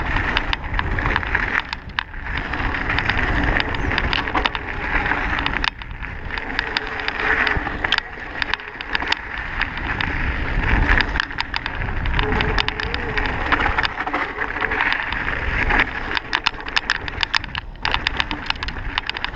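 Mountain bike ridden fast down a rough gravel trail: tyres rumbling and crunching over stones, with an irregular clatter of rattles and knocks from the bike, over a steady rush of wind on the microphone.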